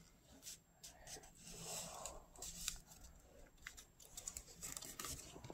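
Square origami paper rustling and crackling faintly as fingers fold it and press the crease flat, with scattered small clicks and a longer rustle about two seconds in.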